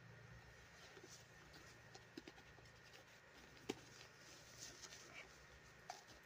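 Near silence with faint taps and rustles of a doll and its clothes being handled, and one sharper click about three and a half seconds in.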